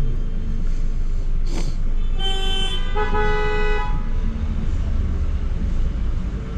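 Car horns honking in jammed traffic: two blasts about two seconds in, the second a little higher and longer, over a steady rumble of traffic. A brief sharp noise comes just before the horns.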